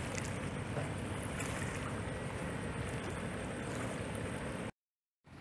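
Steady riverside ambience: an even rush of wind and river water with no distinct events. It drops out for about half a second near the end.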